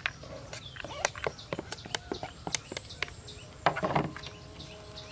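Metal spoon scraping and tapping on a plate in a run of light clicks as minced garlic is scraped into a plastic bowl, with a brief louder clatter just under four seconds in.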